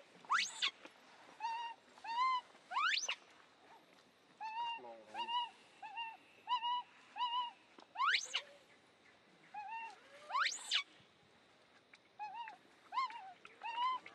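Baby monkey crying: runs of short coo calls, each a quick rise and fall in pitch, broken four times by a high, steeply rising shriek.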